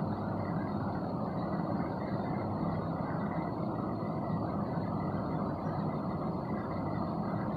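Steady low rumbling noise, even in level throughout, with a faint high whine on top.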